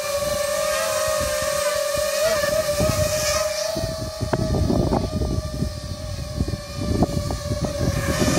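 Quadcopter's Emax 2204 brushless motors spinning 5040 tri-blade props, giving a steady high whine. Gusty wind buffets the microphone, growing heavier about halfway through.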